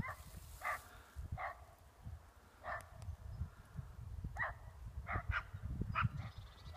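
Bracco Italiano sniffing hard with its nose to the ground as it tracks a wounded woodcock's scent: short nasal bursts, irregularly about one a second, some in quick pairs, over a low rumble on the phone's microphone.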